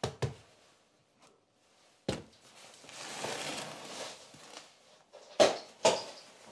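Kitchen handling sounds: a glass mixing bowl resting on a book is knocked and slid about on a worktop. There is one knock about two seconds in, then a stretch of rustling scrape, then two sharp knocks close together near the end.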